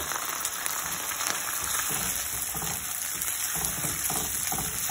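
Soy-vinegar sauce with garlic sizzling and bubbling in hot oil in a nonstick frying pan, a steady crackle, while a silicone spatula stirs it.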